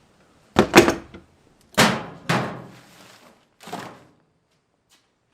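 Four loud thuds, each trailing off briefly, the middle two close together and the last one weaker.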